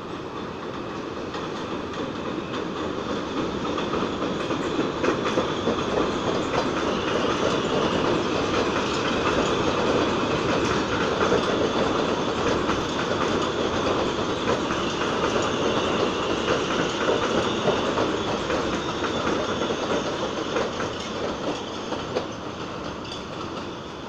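Elevated New York City subway train running past the platform: the steady rumble and clatter of steel wheels over the rails swells as the cars go by, then fades near the end.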